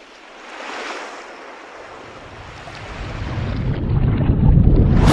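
Water-themed sound effect for an intro logo animation: a swell of rushing, surf-like noise, then a deep rumble that builds louder and more muffled and cuts off suddenly at the end.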